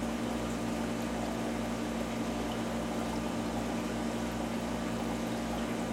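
Steady hum of aquarium pumps with running water from the tank's circulation, a constant drone with a few held low tones.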